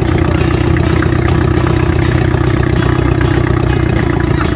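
Old farm tractor engine idling steadily and close by, with a fast even firing pulse and a light mechanical clatter.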